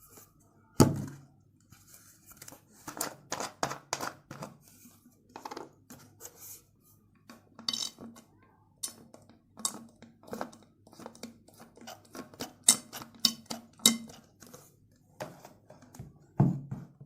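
A utensil clinking, tapping and scraping against a mixing container in irregular strokes as slime ingredients are stirred, with a heavier knock about a second in and again near the end.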